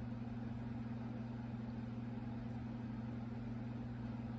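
Steady low hum in two constant tones, unchanging throughout, with no other sound.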